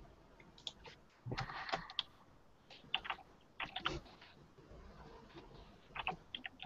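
Faint, irregular clicks and taps of computer keyboard typing, in a few short clusters, picked up by a video-call microphone.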